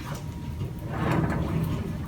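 A heavy steel tool chest rolling on its new casters across the floor, a low rumble that gets louder about a second in.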